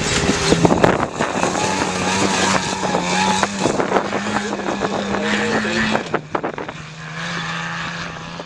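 Off-road race truck's engine running hard under way with a steady drone, over a clatter of sharp knocks and rattles. About six seconds in, the engine note drops a little and the sound gets quieter.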